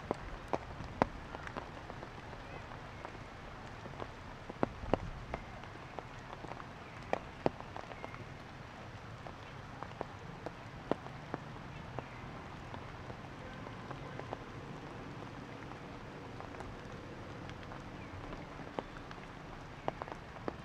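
Raindrops and water dripping onto leaves and hard surfaces after heavy rain: irregular sharp drips, sometimes several a second, over a steady hiss.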